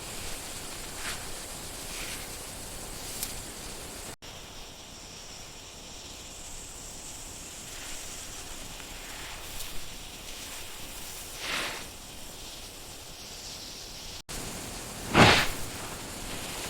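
Steady outdoor background hiss with a few faint rustles, and a short, louder thump about fifteen seconds in. The sound drops out for an instant twice.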